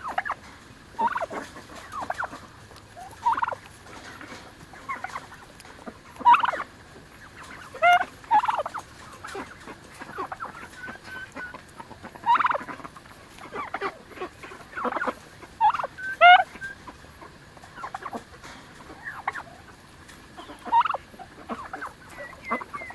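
Harvest Gold turkeys calling: short, high yelps and chirps, one every second or two.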